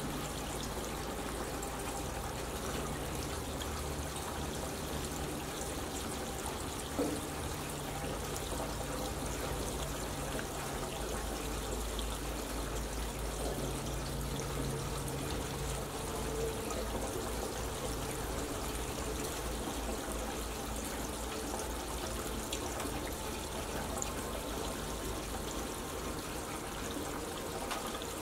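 Steady rushing noise like trickling or running water, with one short knock about seven seconds in.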